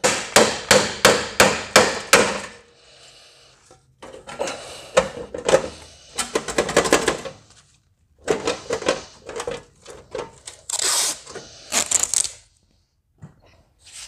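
Hammer blows on the Suburban's sheet-metal body panel, a quick, even run of about three strikes a second that stops after two and a half seconds, followed by irregular knocks and scraping of metal.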